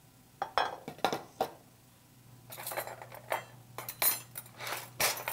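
Kitchenware clinking and clattering: a stainless steel pot, its lid and a fork being handled on a counter. A few sharp clinks in the first second and a half, then a quicker run of clinks and clatter from about halfway.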